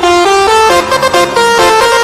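Bus telolet horn, a multi-tone musical air horn, playing a quick melody of short notes that step up and down several times a second.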